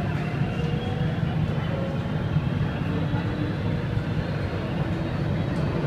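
Interior of an Alstom Metropolis C751A metro car pulling out of a station: a steady deep rumble from the running train, with faint whining tones above it.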